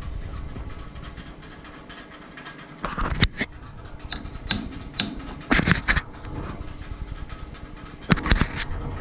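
Light hammer taps on a bent steel pin gripped in a lathe chuck, knocking it toward centre. The sharp metallic knocks come in small groups: two about three seconds in, single ones around four and a half and five seconds, a quick cluster just after, and another cluster near the end.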